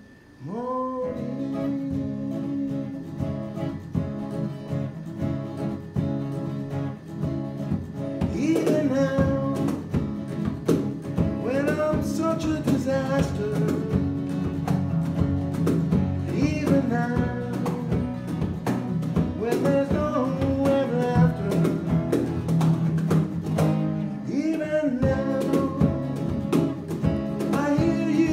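Acoustic band music: strummed acoustic guitars under gliding, wavering lead notes, growing fuller and louder about eight seconds in.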